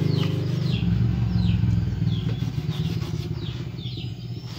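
Small engine running steadily at idle, fading near the end, with small birds chirping in quick falling notes.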